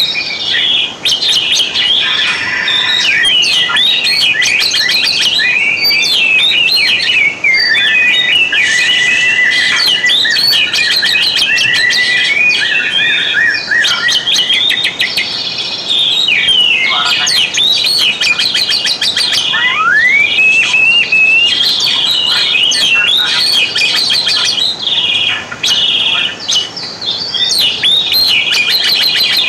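Oriental magpie-robin (kacer) singing continuously: a rich, varied song of rapid chirps and clear whistles, with a long rising whistle a little past the middle.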